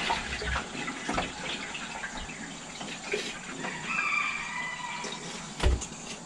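Lemon-juice soaking water and peeled apple slices poured from a stainless steel bowl into a strainer over a stainless stockpot: water splashing and draining through, with small knocks of apple pieces and metal, and one heavy thud near the end.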